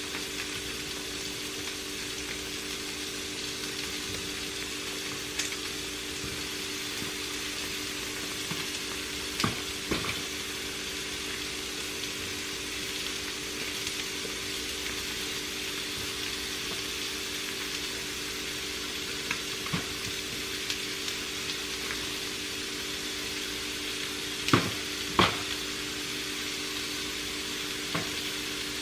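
Eggs and chicken pieces sizzling in frying pans on a gas stove, a steady hiss over a low hum. A handful of sharp metal clicks, the loudest two about 25 seconds in, as the utensil knocks against the pan.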